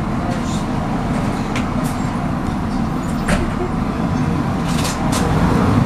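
Interior sound of a MAN 18.240LF single-deck bus under way: the six-cylinder diesel and road noise give a steady low rumble, with several short rattles and clicks from the bodywork and fittings.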